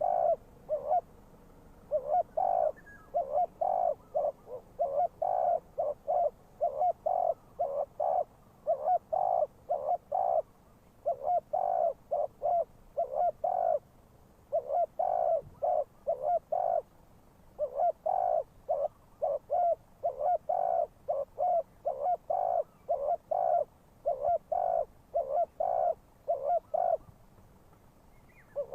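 Spotted dove cooing as a decoy to call in wild doves: phrase after phrase of low hooting notes, a couple of notes a second, with short pauses between phrases.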